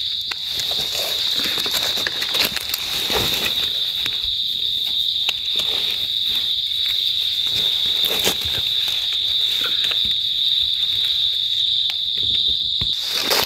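Steady high-pitched insect chorus droning without a break, with the scattered crackle and crunch of footsteps and hands moving through dry leaf litter.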